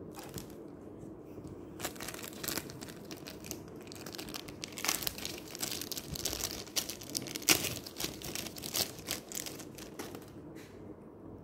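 Thin clear plastic wrapping crinkling and crackling as it is handled and crumpled, in irregular bursts that grow busiest in the middle and die away near the end.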